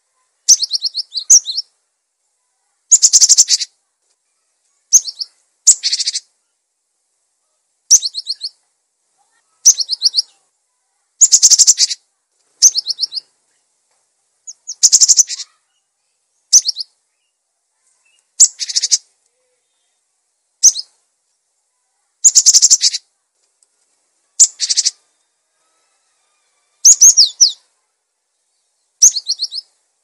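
Cinereous tit (gelatik batu) singing: short phrases of quick, high-pitched notes repeated every one to two seconds, with clean silence between phrases.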